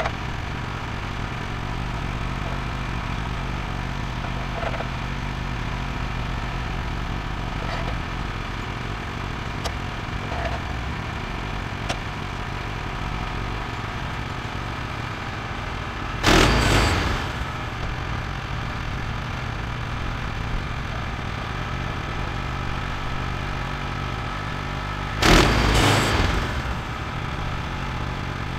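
Woodland Mills HM126 bandsaw mill's engine running steadily. Two loud bursts of noise, each about a second long, break in about halfway through and again near the end.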